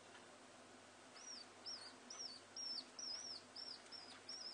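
Common house martin chick calling: a run of short, arched, high chirps, about two a second, starting about a second in.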